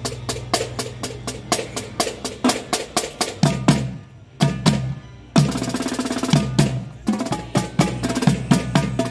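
Marching snare and tenor drums playing a fast drum-corps cadence of crisp stick strokes. The drums pause briefly about four seconds in, then come back with a tight roll.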